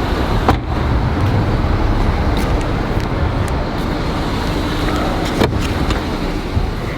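Steady low rumble of road traffic, with two sharp knocks, about half a second in and about five and a half seconds in, from the camera being handled.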